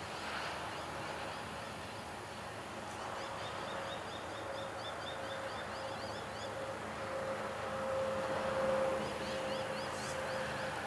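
Loaded coal hopper wagons rolling away on the track: a steady low rumble with a faint steady whine. A bird calls over it in two quick series of short chirps, the first starting about three seconds in and the second near the end.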